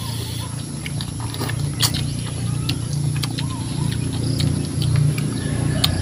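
Close-up eating sounds from hand-eating: wet chewing and lip smacks, many short clicks, over a steady low hum.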